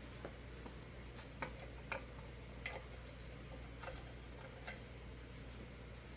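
Faint, irregular small clicks and ticks, about seven of them, of small glass light bulbs being handled and screwed into the sockets of a ceiling fan light kit.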